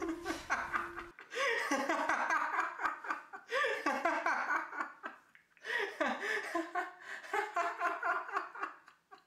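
A man laughing hard in three long bouts with short breaks between, fading out near the end.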